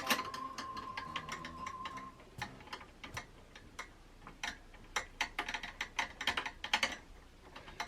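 Small metal clicks and ratchet-like ticks as the Mugen 5 CPU cooler's spring-loaded mounting screws are worked down with a screwdriver against a stiff spring. The clicks are irregular and come thickest in a run near the end, after a thin steady tone stops about two seconds in.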